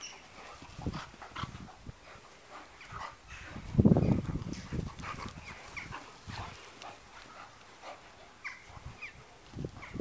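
A Staffordshire terrier and a Labrador playing tug with a rope toy, making dog sounds as they tussle, with a louder burst about four seconds in.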